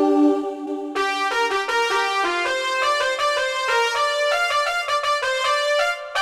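Roland XPS-30 keyboard playing a bright electric-piano-like patch: a held note, then from about a second in a quick run of notes at about five a second.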